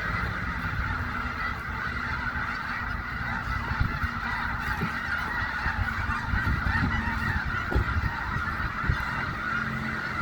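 A large flock of snow geese calling together: a dense, continuous chorus of overlapping honks, with a low rumble underneath.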